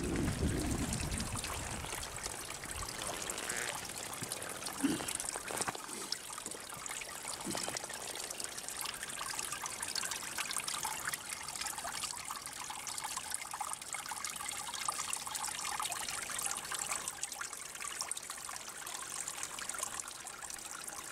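Small stream trickling steadily over stones.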